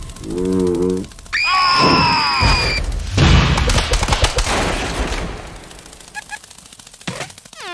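Cartoon soundtrack of wordless character voices and sound effects: a short low grunt, then a high gliding squeal, then a loud rushing noise that fades over about two seconds, with a brief gliding squeak near the end.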